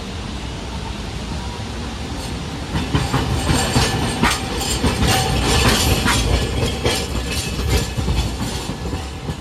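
Hiroden tram car 714, a Hiroshima Electric Railway 700-series streetcar, rolling past close by: a low rumble that grows louder about three seconds in. Its wheels then clatter and knock over the rail joints and points for several seconds before it eases off near the end.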